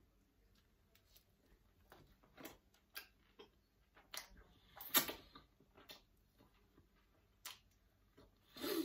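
A person chewing a bite of a bread-roll sandwich, close to the microphone: soft wet mouth clicks and smacks, with a louder smack about five seconds in and a short noisy sound near the end.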